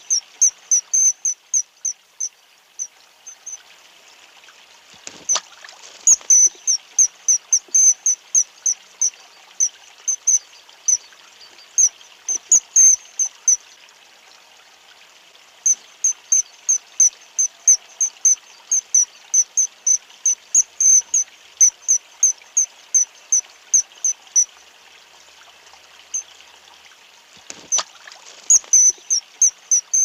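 Common kingfisher calling: runs of short, shrill, high-pitched notes, about two or three a second, broken by pauses of a few seconds, over the steady hiss of running water.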